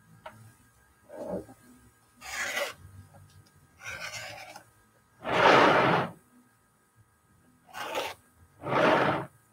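Rotary cutter slicing through layered cotton fabric along a ruler edge on a cutting mat: six short cuts about a second or two apart, the one a little past the middle the loudest.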